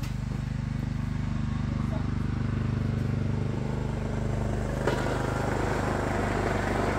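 Small single-engine lawn tractor, a 2006 Craftsman YS4500 plowing snow, running steadily at working speed with a fast even putter. About five seconds in a rougher, rushing noise joins it.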